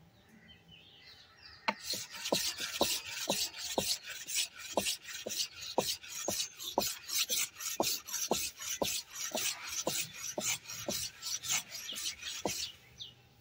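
Steel aruval (billhook) blade being stroked back and forth on a wooden sharpening board: a rhythmic rasping scrape, about two strokes a second, each with a short falling tone. It starts about two seconds in and stops shortly before the end.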